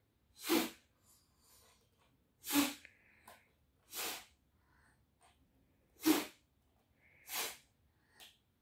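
A toddler blowing hard through a drinking straw in short, forceful puffs, five in all, each a brief rush of breath noise, about one to two seconds apart.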